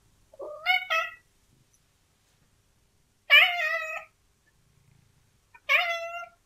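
A domestic cat meowing for its dinner: three meows, a short one rising in two steps, then two longer ones.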